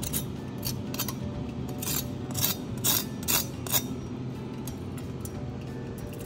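Knife blade crunching into the crispy crackling skin of air-fried roast pork belly: a run of sharp crackles and snaps for the first four seconds, the loudest near the middle, then they stop.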